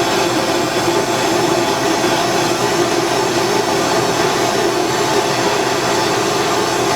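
Propane torch flame burning with a steady rushing hiss as it heats a copper branding iron head.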